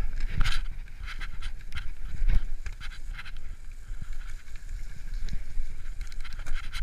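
Heavy panting in quick repeated breaths, over the low rumble and rattle of a mountain bike rolling down a leaf-covered dirt trail.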